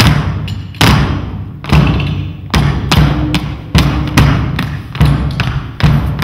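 Percussive music with a steady beat: heavy low drum thuds about every 0.8 s, with lighter hits in between.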